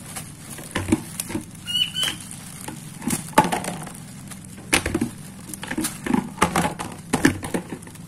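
Irregular small clicks and crackles as fingers pull apart a grasshopper, twisting off its head and legs to clean it.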